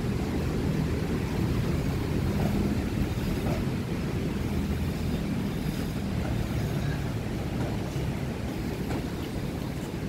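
Steady low rumble of ocean surf and wind against the microphone, with a faint low hum mixed in.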